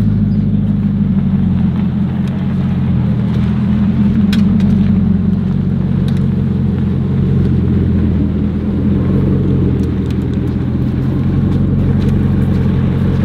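A car engine running steadily at low revs close by, an even low-pitched sound with little change in pitch.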